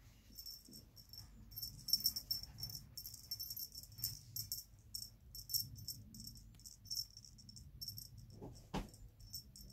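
Light jingling rattle of cat wand toys in short, irregular bursts as a kitten bats and bites at them, with a brief dull knock near the end.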